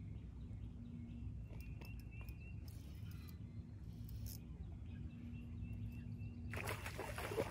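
Steady low rumble outdoors with faint bird chirps; near the end a sudden burst of splashing as a hooked fish thrashes at the surface while being reeled in.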